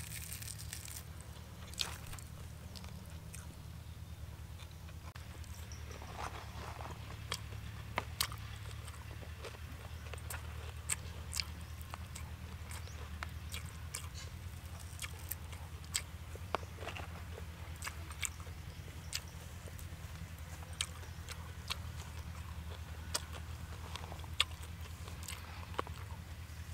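A person chewing and biting crisp roasted fish, with irregular sharp crunching clicks over a steady low hum.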